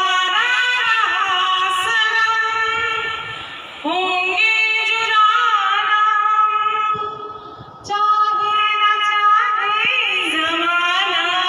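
A woman singing a song into a handheld karaoke microphone, holding long notes in three phrases, with short breaks about four and eight seconds in.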